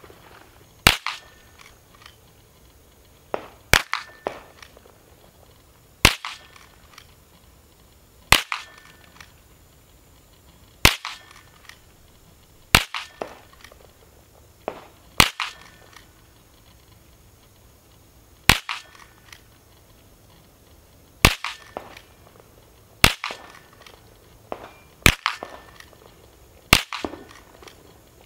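Henry H001 .22LR lever-action rifle firing about a dozen aimed single shots, one every two to three seconds. Fainter clicks follow each shot as the lever is cycled to chamber the next round.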